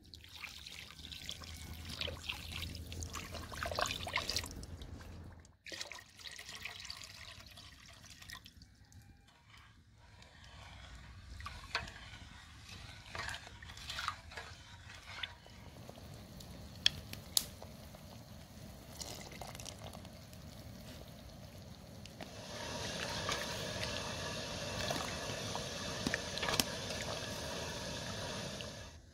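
Granulated sugar pouring into a stainless steel pot at first. Then a wooden spoon stirs sugar and water in the pot, with scattered clicks and knocks of the spoon on the metal. In the last several seconds there is steady, louder swishing and sloshing of the liquid as the syrup is stirred hard.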